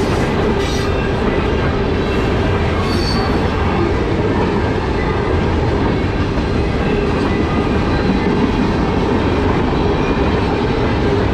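Freight cars of a mixed freight train (covered hoppers, tank cars, centerbeam lumber flats) rolling steadily past: a continuous loud rumble and rattle of steel wheels on the rails.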